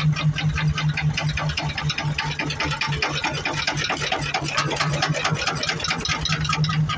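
Large antique stationary engine with twin flywheels running, a fast, even mechanical clatter over a steady low hum.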